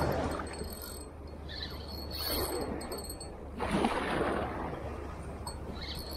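Water washing against the rocks of a groyne in a few surges of splashing that swell and fade, over a steady low hum.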